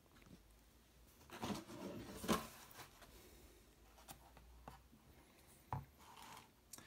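Hands handling and opening a picture book: the cover and thick pages rustle and knock, loudest about two seconds in, with a few light ticks afterwards and a soft thump near the end.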